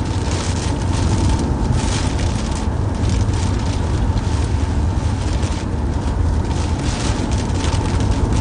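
Steady road noise and low engine rumble inside a moving car.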